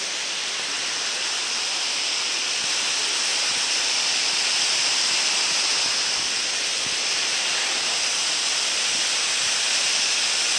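Steady rush of white water from a rocky mountain creek cascading over stones, an even hiss with no breaks.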